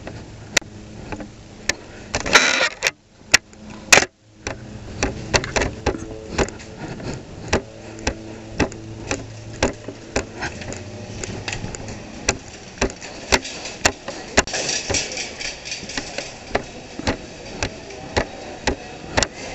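Small scooter engine running at low speed, with a loud rush of noise about two seconds in. From about four seconds on, a steady run of sharp knocks, about two a second: footsteps walking.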